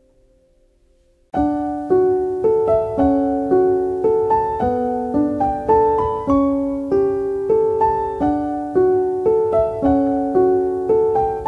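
Background piano music. After a faint held chord, a solo piano starts abruptly about a second in and plays a steady run of notes.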